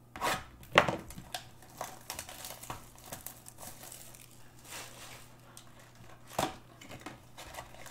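Wrapping being torn and crumpled off a Panini Prizm basketball card box: crinkling and rustling with several sharp crackles, the loudest about a second in and again near the end.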